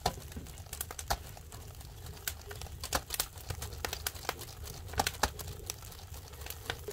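Irregular crackling and popping, several sharp pops a second, from salted mackerel cooking over a wood fire.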